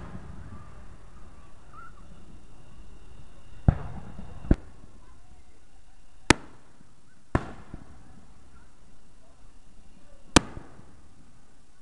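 Aerial fireworks bursting: five sharp bangs at uneven gaps, each trailing off in a brief echo.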